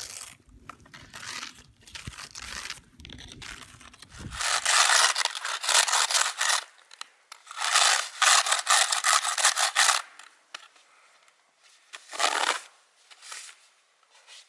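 Snow and ice being scraped and rubbed off the face of a stone memorial. A run of rough scraping strokes starts about four seconds in, and one last stroke comes near the end.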